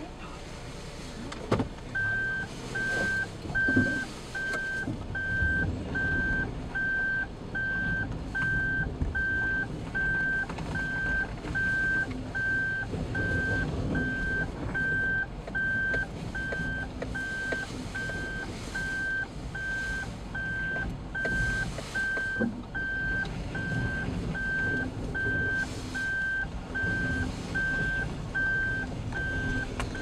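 A car's in-cabin reverse-gear warning beep, sounding evenly a little more than once a second over the low running noise of the engine and tyres on a snowy road. It is the sign that the car is in reverse.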